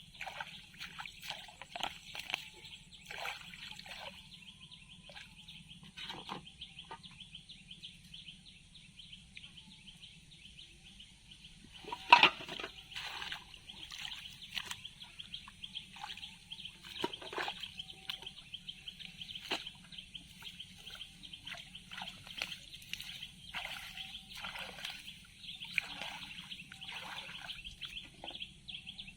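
Water splashing and sloshing in short irregular bursts, with one louder splash about twelve seconds in, over a steady high-pitched chirring of birds or insects in the background.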